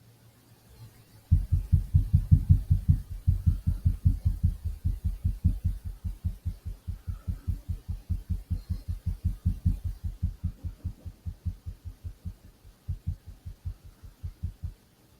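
Rapid, regular low banging, about five dull thuds a second. It starts about a second in, eases somewhat later on and stops near the end.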